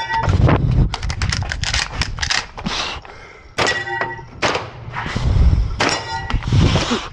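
Rapid shots from a semi-automatic shotgun, with steel targets ringing when hit. There is a short lull about three seconds in before the shooting resumes.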